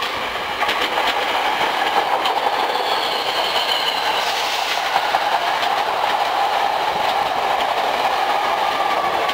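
Hankyu 7300 series electric train with Toyo Denki VVVF traction equipment passing close by as it slows into the station. It makes a steady running noise, with the wheels clicking over rail joints, and the high inverter-motor whine falls in pitch partway through as the train brakes.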